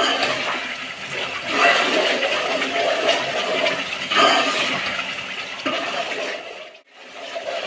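Masala paste of onion and ginger frying in oil in a pan, sizzling while it is stirred, with a swell of noise at each stroke about every second or so; the masala is being cooked down until the oil separates. The sound drops out briefly near the end.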